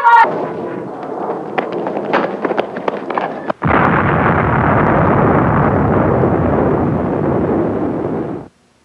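Rapid crackling and popping for about three seconds. Then a sudden loud explosion whose roar runs on steadily for about five seconds and cuts off abruptly.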